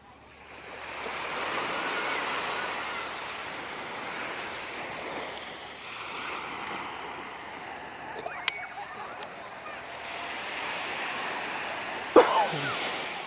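Surf breaking and washing up a sandy beach, swelling about a second in and rushing on, with a few small clicks and one short, sharp, loud sound near the end.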